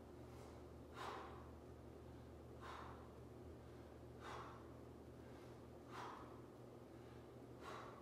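A man's short, sharp breaths, five of them evenly spaced every second and a half or so, in time with the reps of a resistance-band row.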